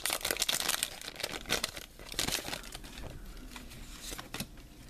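Foil Pokémon booster pack wrapper crinkling and tearing as it is pulled open by hand: dense crackling for the first two seconds, then quieter, scattered crinkles.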